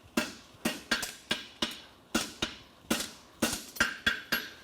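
Hand hammer striking a hot steel horseshoe bar on an anvil, about a dozen blows at a steady pace of two to three a second, each with a short metallic ring, as a farrier forms the heel of a double-calked hind shoe.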